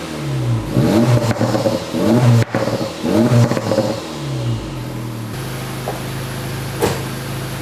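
Acura Integra Type S's 2.0-litre turbocharged four-cylinder engine, on its stock exhaust, revved four times in quick succession up to its soft rev limiter of about 3,500 rpm. Each rev rises and falls back, and the engine settles to a steady idle a little past halfway through.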